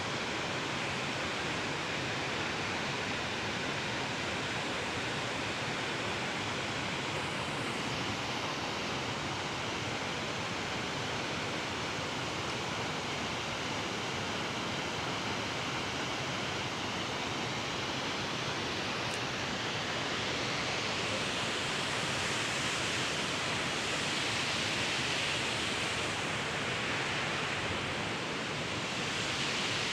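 Waterfall rushing: a steady, unbroken water noise that grows a little louder and brighter about two-thirds of the way through.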